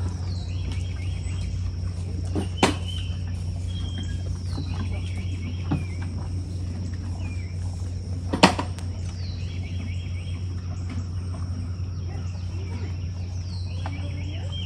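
A songbird repeating the same short song phrase about every four seconds, each a quick falling note followed by a run of chattering notes. Under it run a steady high thin tone and a steady low hum, and two sharp knocks stand out, one a few seconds in and a louder one past the middle.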